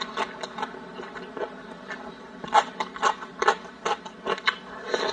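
Close-miked eating sounds: a person chewing with irregular wet smacks and clicks of the mouth, loudest and quickest near the middle.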